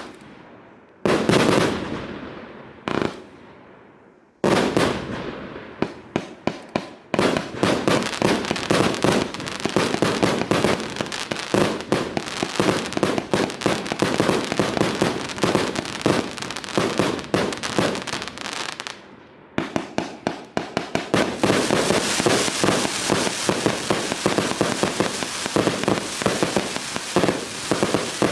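Nico Delta Fire 144-shot compound fireworks cake firing. A few single shots boom out and die away, then rapid volleys of shots start about five seconds in. After a brief lull around two-thirds of the way through, a denser run of shots follows, with a hissing haze under the bangs.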